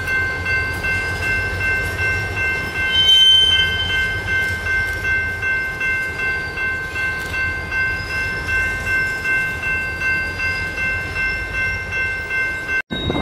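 Freight train cars rolling past, their wheels clacking over the rail joints in a steady rhythm over a low rumble, with several steady high-pitched squealing tones held above it. The sound swells briefly with a sharper high tone about three seconds in, and drops out for an instant near the end.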